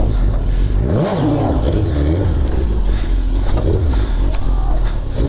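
Suzuki GSX-R1000 K2 superbike's inline-four engine revving under a rider's throttle on a rocky off-road course, rising and falling in pitch about a second in.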